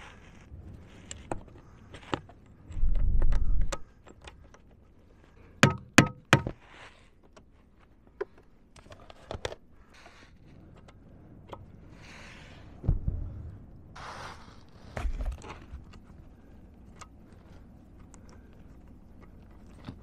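Metal clicks, clinks and knocks from the snowblower's driveshaft yoke being handled with gloved hands while its broken shear pin is replaced. There are a few sharp ringing clanks about six seconds in, a dull low thump about three seconds in and another near thirteen, and a brief rustle of clothing.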